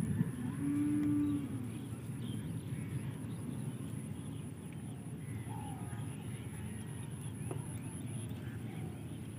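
A cow lowing once, a short steady moo about half a second in. Faint bird chirps follow over a steady background hiss.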